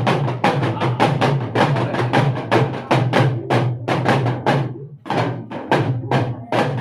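Deru, the small hourglass folk drum, played in a fast, even rhythm of about four to five strikes a second over a steady low drone, as an instrumental interlude of a bhajan; the beat breaks briefly about five seconds in.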